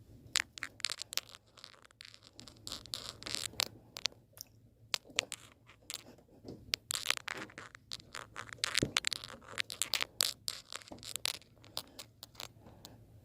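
Irregular clicks, scrapes and crinkly rustles from hands working an anodized intake ring into the engine's intake opening, a tight press fit.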